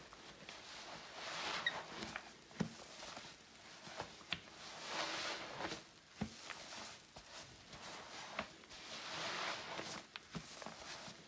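A wet sponge soaked with floor cleaner being squeezed by hand, squelching and crackling with small pops and clicks. Three long squeezes swell and fade, about four seconds apart.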